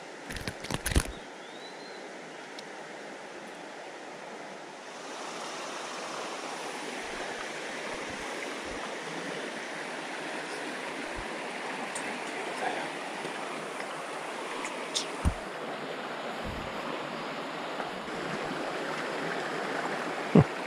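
Steady rush of a shallow river running over rock riffles, getting louder about five seconds in. A few short sharp clicks and knocks break through, the loudest just before the end.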